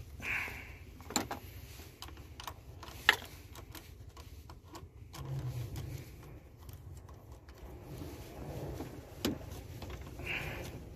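Small hand ratchet wrench clicking in short runs and metal tool clinks on the battery terminal clamp as its nut is worked loose, with one sharp metallic click about three seconds in.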